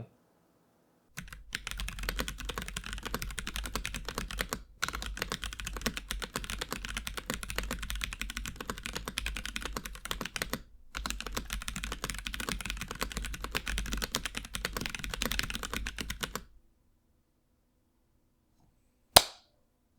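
Fast typing on a mechanical keyboard fitted with KTT Monochrome Onyx tactile switches in polycarbonate housings, a dense run of higher-pitched key clacks with two brief pauses, stopping about sixteen seconds in. One sharp click near the end.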